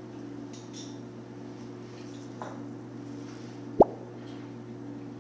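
A single short plop with a quickly falling pitch a little under four seconds in, over a steady low hum.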